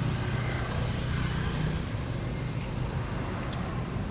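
Low hum of a motor vehicle engine running, over steady outdoor background noise; the hum weakens after about two seconds.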